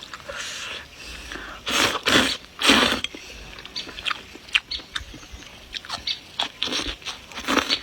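A person eating close to the microphone: chewing with wet smacks and small clicks. About two seconds in come two longer, louder noisy bursts, like slurps of noodles.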